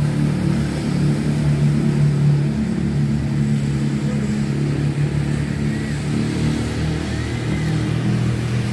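Steady low drone of vehicle engines from the street traffic, over a broad hiss of tyres on the wet road.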